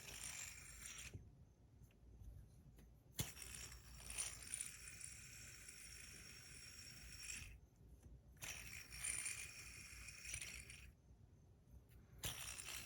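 Metal fidget spinner fitted with tungsten buttons, whirring on its bearing with a faint high ring. It makes several spins of a few seconds each that stop and start again, with a sharp click about three seconds in.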